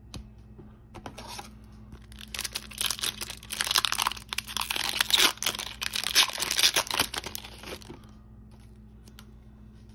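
Foil wrapper of a 2021-22 Upper Deck MVP hockey card pack being torn open and crinkled: a dense crackling from about two seconds in until nearly eight seconds in, with a few light clicks before it.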